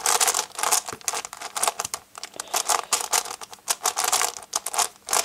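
Plastic layers of a QJ 4x4 Rubik's cube being turned quickly by hand: an uneven, rapid run of clicks and clacks. The cube turns very loosely.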